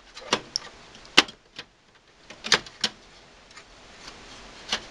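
A hard drive fitted with side rails being slid into the metal drive bay of a desktop computer case: a series of sharp clicks and knocks, loudest about a second in, with a quick cluster of them about halfway through.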